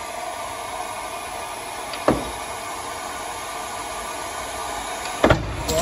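Steady hiss with a sharp metallic snap about two seconds in and a louder double crack near the end: the welded pull studs tearing off the car's body panel under the dent puller's pull.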